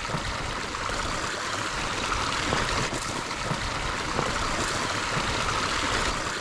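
Shallow creek water running steadily through the sticks of a beaver dam that has been breached and drained.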